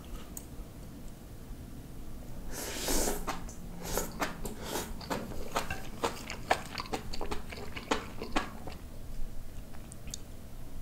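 A person chewing a mouthful of rice with braised spicy kimchi and pork belly (kimchi-jjim), close to the microphone. After a quiet start there is a louder burst about two and a half seconds in, then several seconds of chewing with many small clicks.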